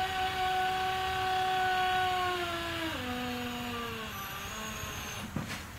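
Hydraulic car lift lowering the car onto jack stands: a steady whine that steps down in pitch about halfway through, then fades out, with a couple of faint clicks near the end.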